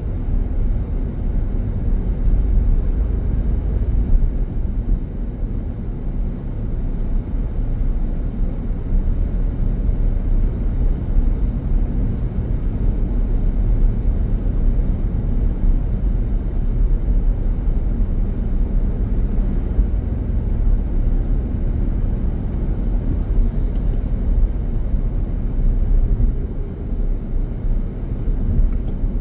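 Car driving on an open road, heard from inside the cabin: a steady low rumble of engine and tyre noise.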